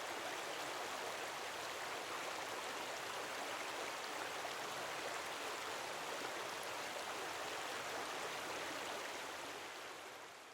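Steady rush of flowing water from a stream, fading out near the end.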